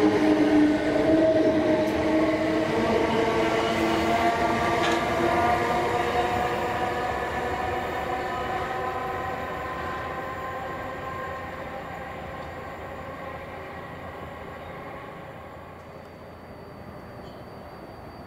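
Train accelerating away. Its whine of several pitches rises slowly, and the sound fades steadily over about fifteen seconds.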